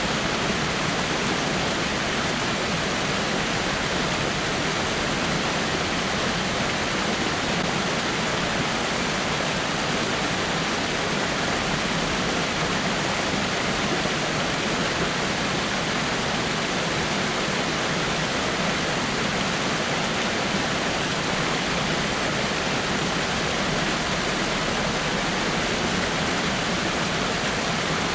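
Small waterfall splashing onto rocks, a steady even rush of falling water that does not change.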